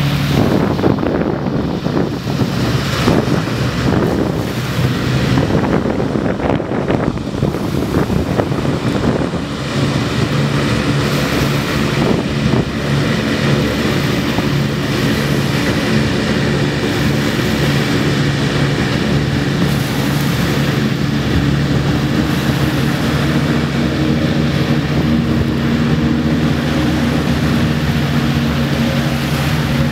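Griffon 12000TD passenger hovercraft running over the water, its twin ducted propellers and engines giving a steady low drone with several held tones. For about the first nine seconds a loud gusty rush of spray and wind noise covers the drone.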